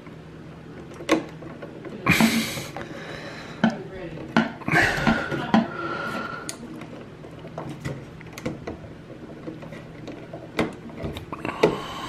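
A light switch and its stiff copper wires being handled at a wall box, a wire being bent around a terminal screw: scattered small clicks and taps of metal and plastic, with two louder scraping bursts about two and five seconds in.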